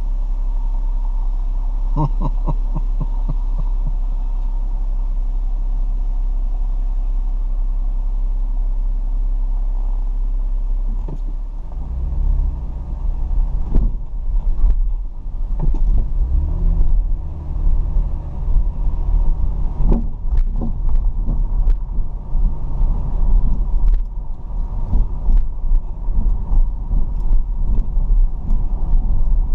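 A car driving, heard from inside the cabin: a steady low engine and road hum that turns, about eleven seconds in, into a louder, uneven rumble with scattered knocks.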